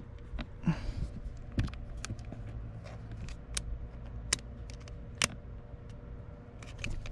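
Scattered sharp clicks and knocks of hands and tools working plastic trim and a seat-belt fitting free inside a Tesla Model 3, over a low steady hum.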